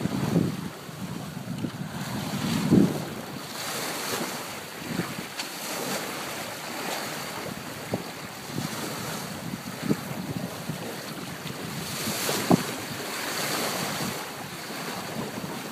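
Wind buffeting the microphone and water rushing and splashing along the hull of a Mirage 24 sailboat heeled under full sail, with a few sharp knocks, the loudest about 3 seconds in and near 12 seconds in.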